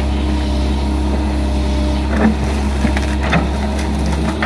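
Komatsu crawler excavator's diesel engine running steadily under load, with a few short cracks and knocks about two and three seconds in as the bucket tears at a bamboo root clump.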